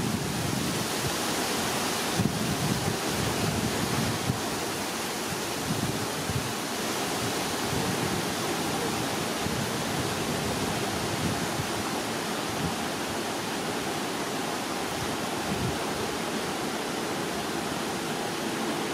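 Wind blowing on the microphone: a steady rushing hiss, with low uneven buffeting in the first few seconds.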